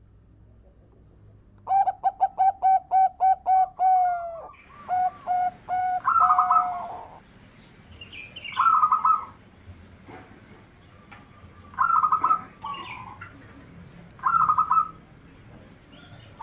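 Zebra dove (perkutut) cooing: a fast run of about eight short clipped notes ending in a longer drawn-out note, then several separate higher cooing phrases with pauses between them.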